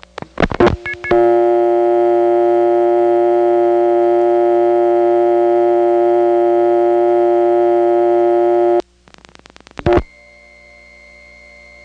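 A telephone line on a number one step-by-step exchange: clicks as the phone goes off hook, then a loud, steady, buzzy dial tone for about seven seconds. A quick burst of dial-pulse clicks from a single digit cuts the tone off, followed by a loud thump, the step office's cut-in noise as the call reaches a second selector, and then a faint steady tone on the line.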